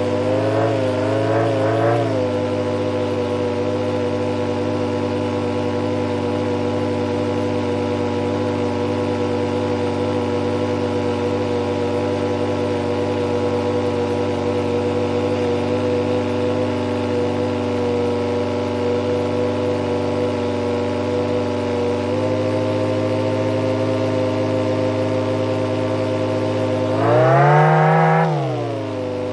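Supercharged turbine idling steadily with an even, multi-toned whine. It wavers for the first couple of seconds, shifts slightly in pitch about three-quarters of the way through, then briefly revs up and drops back to idle near the end.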